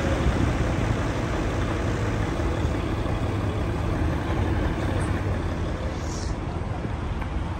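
Road traffic on a wet city street: cars and trucks passing in a steady hiss and rumble, with wind on the microphone.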